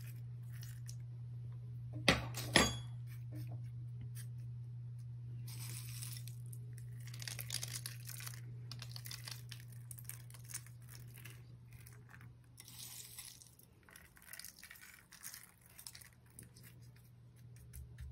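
Mixed sunflower, pumpkin, sesame and flax seeds being scattered by hand from a bowl onto egg-washed dough on parchment paper: soft rustling and pattering that comes in spells, with two sharp knocks about two seconds in. A steady low hum runs underneath.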